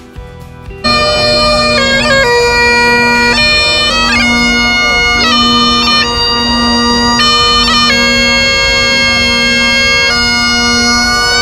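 Bagpipes start up abruptly about a second in and play a tune, the chanter's melody stepping from note to note over the pipes' steady drone.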